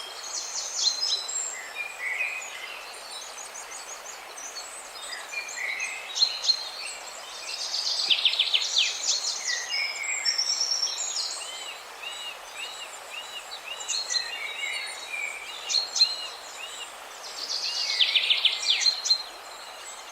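Several songbirds chirping and singing over a steady rush of water. Dense, rapid trills swell twice, about eight seconds in and again near the end, and a run of evenly spaced, repeated notes comes in between.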